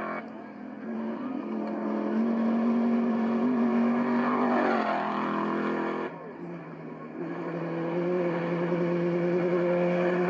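Off-road trophy truck engines running hard as the trucks speed past. One truck's engine note rises and then drops as it passes about five seconds in; the sound cuts off suddenly near six seconds, and another engine comes in and holds a steady high note.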